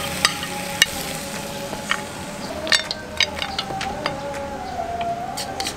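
A metal spatula clicks and scrapes against a wok and a plate as fried rice is scooped out: a handful of short, sharp clicks. Under them runs background music with a held, slowly wavering tone.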